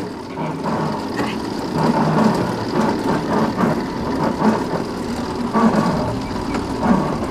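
Pedal-powered elevated sky cycle rolling along its steel rail, a continuous uneven rumble, with a few indistinct voices.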